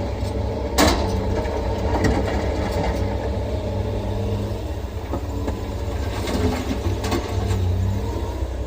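Excavator's heavy diesel engine running steadily at work, with a sharp metallic clank a little under a second in and another about seven seconds in, and a few lighter knocks between.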